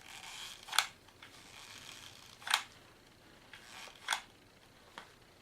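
Hot glue gun being worked to plug a wheel's axle hole: three sharp clicks about a second and a half apart, each after a softer rasp, with a faint tick near the end.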